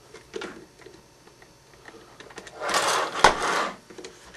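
Small plastic parts of an RC buggy's front suspension clicking and rattling as a caster spacer is clipped onto the hinge pin with needle-nose pliers. Faint clicks come first, then about three seconds in a second-long burst of rattling with one sharp snap in the middle.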